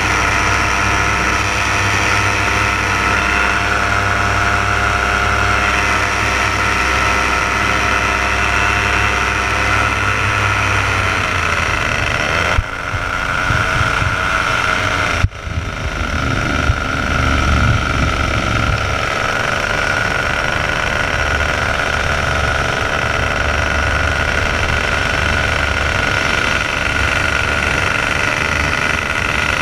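Paramotor engine and propeller running steadily in flight, with wind rushing past. Near the middle the engine note sags slightly and the sound cuts out briefly twice before settling again.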